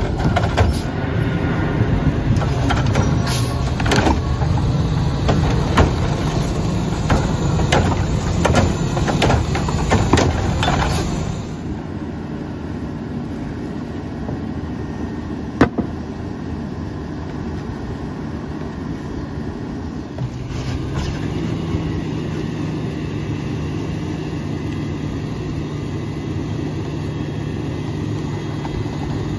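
Mack LR rear-loader garbage truck with its engine revved up to drive the hydraulics while the cart tipper works, with repeated clanks and bangs of cart and tipper against the hopper. About eleven seconds in the engine drops back to idle. A single sharp knock comes a few seconds later, and about two-thirds of the way through the engine speeds up again.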